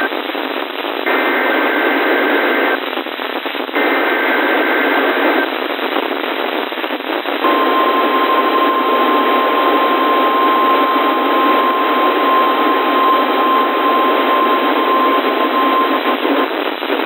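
NOAA Weather Radio broadcast over receiver static: two short bursts of the SAME alert header's two-tone data signal, about a second apart, then after a pause the 1050 Hz warning alarm tone sounding steadily for about nine seconds before cutting off, marking the weekly test.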